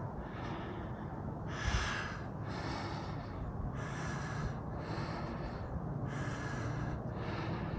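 A man breathing hard and steadily through the mouth, about one breath a second, winded from the climb up the hill.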